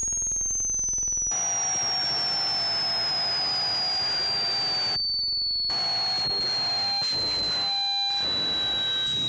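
A high electronic sine tone sliding slowly and steadily down in pitch. About a second in, a hiss of static with a fainter steady hum joins it; the static cuts out for a moment around the middle.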